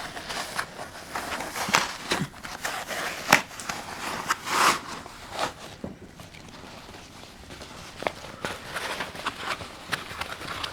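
Handling noises from fitting an animatronic's costume and arm: irregular rustles, light knocks and clicks of fabric and plastic parts being worked into place.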